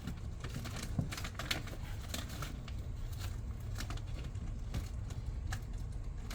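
Packaging being handled: irregular light clicks and crinkly rustles of paper and plastic, over a steady low hum.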